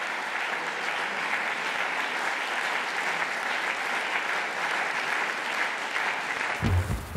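Long, steady applause from a seated audience clapping in a hall, breaking off abruptly near the end as a low thumping sound begins.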